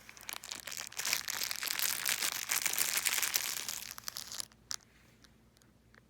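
Packaging wrapper crinkling as a pocket knife is unwrapped by hand, a dense run of crackles that stops suddenly about four and a half seconds in. A few faint clicks follow.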